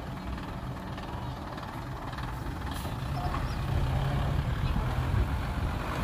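Heavy construction vehicle's diesel engine running under load, a steady low rumble that grows louder about halfway through.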